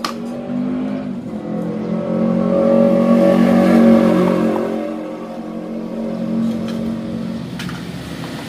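A motor vehicle engine running at a steady pitch, growing louder over the first few seconds and then easing off. A sharp click comes right at the start.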